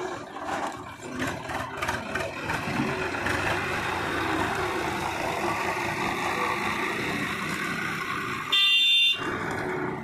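Swaraj farm tractor engine running as the tractor pulls its trailer past at close range. Near the end comes one loud, high horn beep about half a second long.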